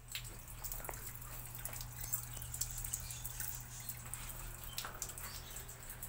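Water running and splashing into a top-load washing machine tub through a newly replaced inlet valve, with scattered small ticks and a steady low hum beneath. The flow is now strong, where before the repair it came in very weakly.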